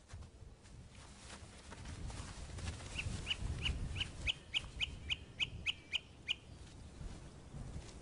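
A bird gives a quick run of about a dozen short, sharp calls, three or four a second, starting about three seconds in and stopping a little past six seconds, over a low steady rumble.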